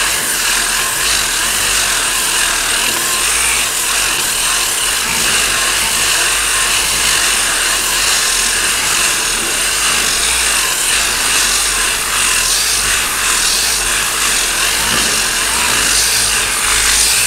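Continuous sanding of body filler (Bondo) on a car body panel: a steady, even scratching noise with no pauses.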